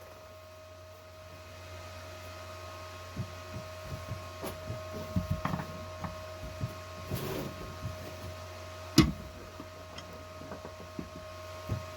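Scattered light knocks and clicks over a steady hum, with one sharper knock about nine seconds in.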